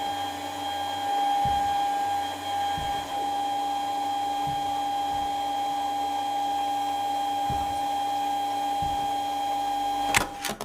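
A steady machine-like hum with several held tones, a few low thumps at irregular intervals, then a sharp click near the end before the sound cuts off abruptly.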